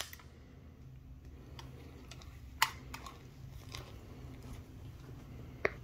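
A few scattered sharp clicks and taps, the loudest about two and a half seconds in and another near the end, over a faint low steady hum.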